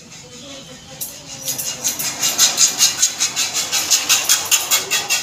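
Barber's scissors snipping through hair in a fast, even run of sharp clicks, several a second, starting about a second in.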